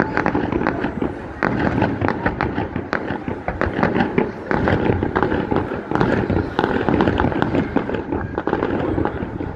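Fireworks display: aerial shells bursting in a dense, near-continuous run of bangs and crackles.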